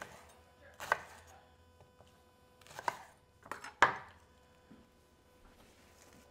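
A knife chopping bok choy on a cutting board: four sharp, unevenly spaced chops, the last and loudest about four seconds in.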